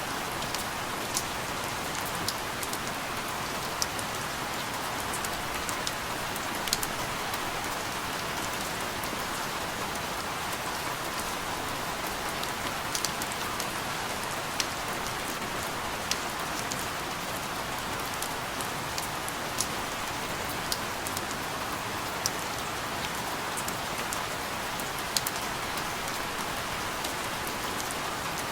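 Steady rain falling, an even hiss with individual drops ticking sharply now and then.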